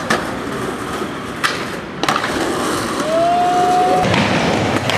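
Skateboard wheels rolling, with a few sharp clacks of the board striking the ground in the first two seconds and a short squeal lasting about a second near the end. The rolling grows louder and deeper about four seconds in.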